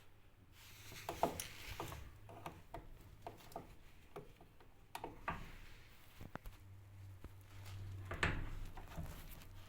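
Handling noise: irregular clicks, knocks and rubbing, over a low steady hum that grows louder in the second half.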